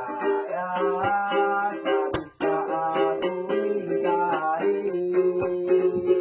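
Music: ukulele-like plucked strings strumming chords under a bending melody line.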